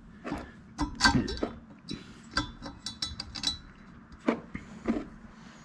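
Irregular light metallic clicks and clinks, about ten, as the vane ring assembly of a Garrett VNT 17/22 turbo is handled and seated into the turbine housing by hand.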